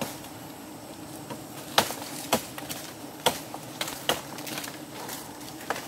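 A swarm of wild honeybees buzzing steadily around their comb as it is smoked. Several irregular sharp snaps and knocks cut through it, the loudest a little under two seconds in.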